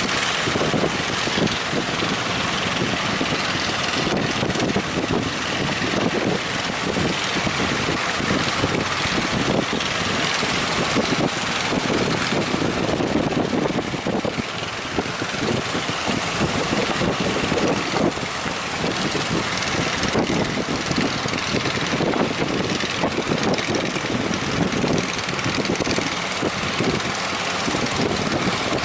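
Fishing boat engine running steadily, mixed with wind rushing over the microphone.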